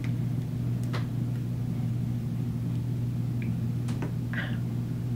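Steady low background hum, with a couple of faint clicks as a plastic cream-jar lid is unscrewed and lifted off.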